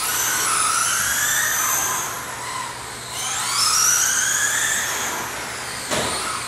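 Electric radio-controlled race cars running on an indoor track: several high-pitched motor whines rising and falling in pitch as the cars accelerate and brake, dipping about two and a half seconds in and climbing again soon after.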